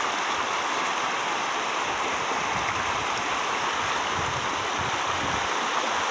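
Shallow river rushing over cobbles and small rapids, a steady rushing hiss of water.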